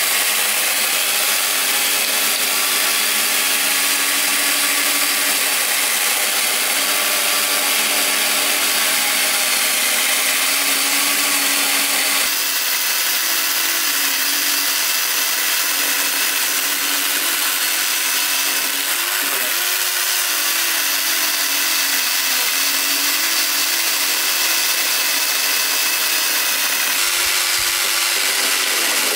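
Small handheld electric chainsaw running continuously as it cuts through a log, a steady motor tone over the rasp of the chain in wood, its pitch dipping briefly a few times as it bites.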